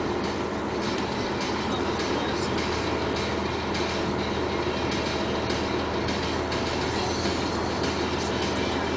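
Kobelco SK200H hybrid hydraulic excavator working: a steady engine and hydraulic drone with a low hum, and scattered light metallic clanks and knocks.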